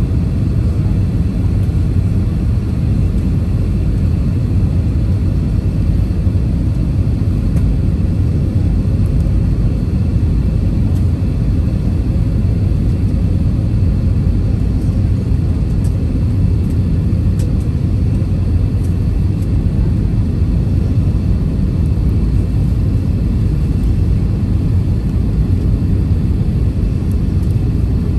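Steady low rumble of an Airbus airliner's cabin on final approach: engine and airflow noise heard from inside the cabin, even and unbroken throughout.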